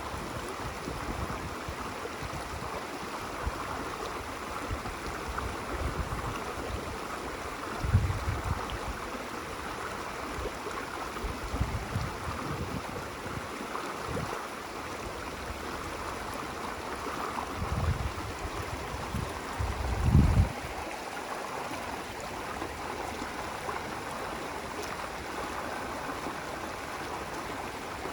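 Running water flowing steadily with an even rush, broken by a few brief low rumbles, the loudest about twenty seconds in.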